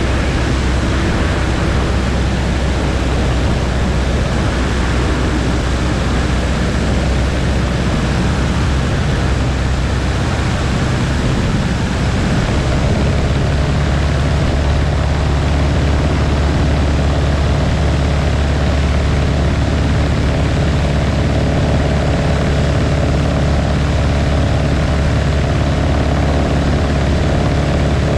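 Small propeller aircraft's engine running steadily, heard on board. About twelve seconds in, the engine note changes and a stronger set of steady tones comes in, as with a change of power setting.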